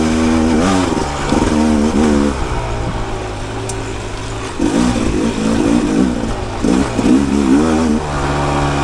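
Rieju MR 300 Pro's single-cylinder two-stroke dirt-bike engine under way on trail, revving up and down as the throttle is worked in bursts. It settles back between bursts and holds a steadier note near the end.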